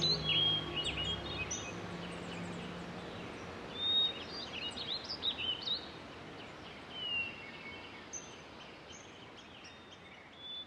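Small birds chirping and singing, many short rising and falling calls, over a steady outdoor hiss that slowly grows quieter. A low hum fades out in the first few seconds.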